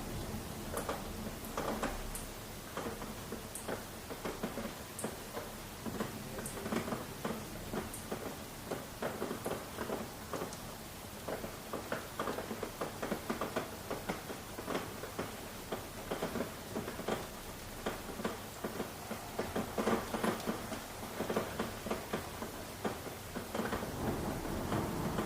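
Rain falling, its drops striking a surface in a dense, irregular patter.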